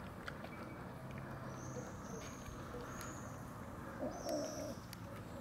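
Cats eating wet food, with faint chewing clicks, while small birds chirp briefly a few times in the background. A short low call about four seconds in is the loudest sound.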